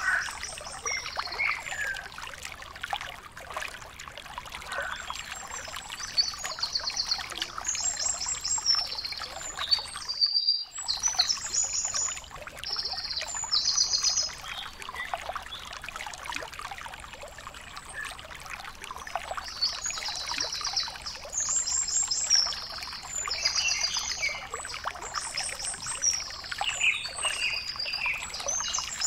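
Outdoor ambience: birds chirping in quick runs of repeated high notes over a steady trickling noise. The sound drops out for a moment about ten seconds in.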